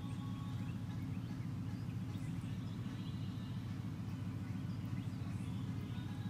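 A steady low hum of many honey bees buzzing around an open hive.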